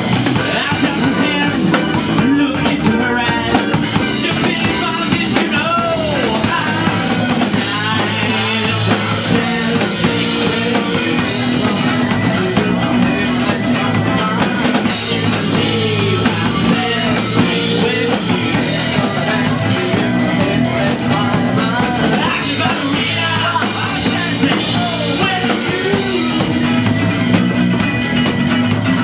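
Rock band playing live: drum kit, electric guitar and bass, loud and continuous.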